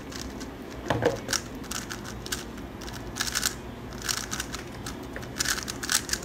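A 3x3 speedcube being turned fast in a timed speedsolve: irregular flurries of quick plastic clicks and clacks as its layers are turned, with short pauses between bursts.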